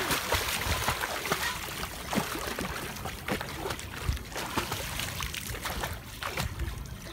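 Pool water splashing and slapping as a child swims with arm strokes, in irregular splashes. It is loudest at first, right after her jump in, then settles a little.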